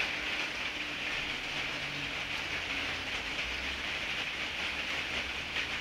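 Steady background hiss with a faint low hum underneath, unchanging throughout; no distinct events.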